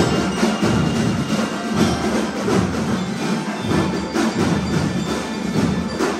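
Drum and lyre band music: steady, dense drum beats with ringing bell-like tones over them.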